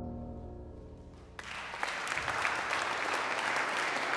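A held musical chord fades out, then a crowd suddenly breaks into applause about a second and a half in and keeps clapping.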